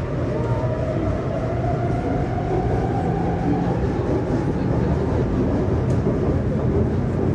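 Taipei Metro C301 steel-wheel train accelerating away from a station, heard from inside the car: steady rumble of wheels on rail, with a whine that rises in pitch over the first few seconds as the train picks up speed.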